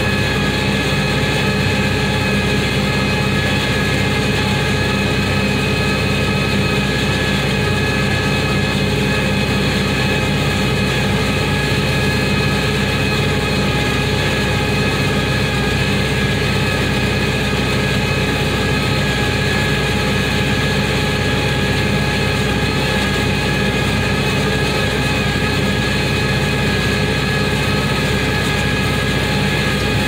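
Farm tractor engine running steadily under load while towing and powering a round baler through its PTO shaft, baling hay. A constant drone with several steady higher whines over it, unchanging throughout.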